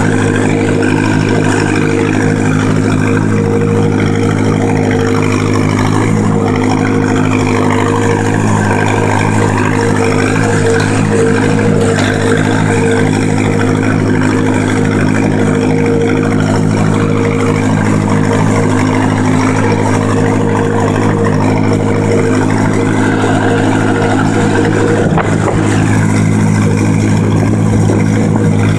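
1949 Massey-Harris 22 tractor's four-cylinder engine running steadily at an even speed while the tractor is driven over snow.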